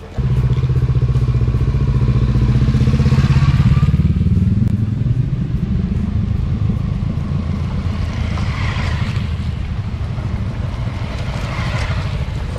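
Motor scooters riding past one after another with their engines running. Each pass swells and fades, about three seconds in, again around nine seconds and again near the end.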